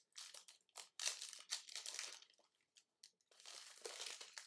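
Faint crinkling of trading-card packaging being handled, in short irregular bursts with a brief pause a little past two seconds.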